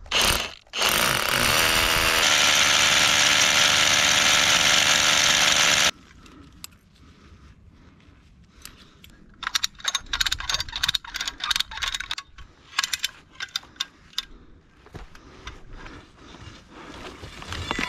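A small motor or power tool runs loudly for about five seconds, then cuts off suddenly. After it comes a run of light metallic clicks and clinks from steel carabiners being handled on a cable.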